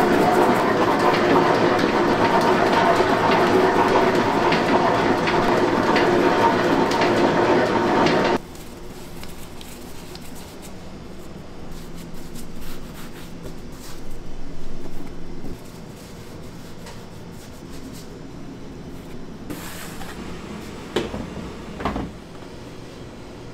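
A bakery machine runs with a loud, steady rattling hum, then cuts off suddenly about eight seconds in. Quieter clicks and knocks of handling follow.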